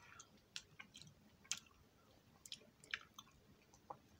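Faint, wet mouth clicks and smacks of a person chewing a soft Hi-Chew chewy candy, coming irregularly, a few a second.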